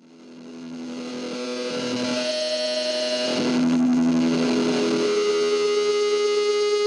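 Ambient electric guitar feedback fading in from silence over the first couple of seconds, building into sustained droning tones. The pitch shifts about halfway through, then settles on one long held tone.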